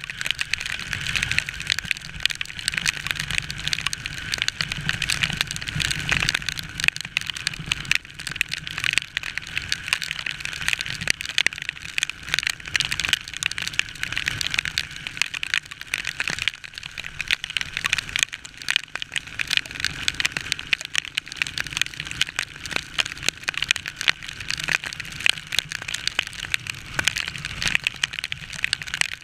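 Heavy rain pelting a motorcycle-mounted camera while riding: a dense, steady crackle of raindrops striking close to the microphone over a low rumble of the motorcycle and road.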